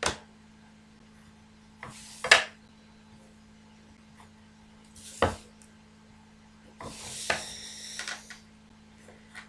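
Drawing instruments knocking and sliding on a paper-covered drawing board: a plastic set square and wooden ruler set down with sharp taps at the start, about two seconds in (the loudest) and about five seconds in. A longer scraping slide of the set square across the paper comes around seven to eight seconds.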